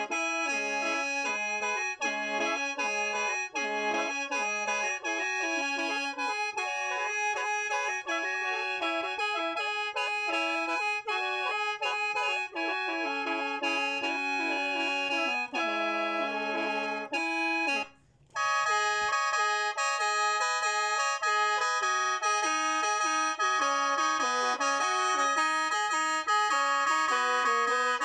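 Khaen, the Lao bamboo free-reed mouth organ, playing a melody over sustained drone notes. It stops for a moment about two-thirds of the way through, then carries on.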